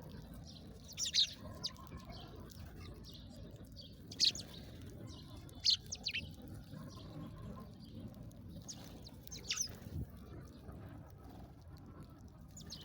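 Small songbird giving short, sharp chirps, each a quick downward sweep, scattered a second or more apart over a steady low background hiss.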